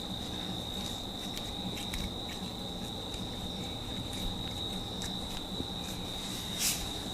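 Quiet hands-on head massage: faint scattered taps, and a short crackling rustle near the end as hair is worked. A steady high-pitched trill runs underneath.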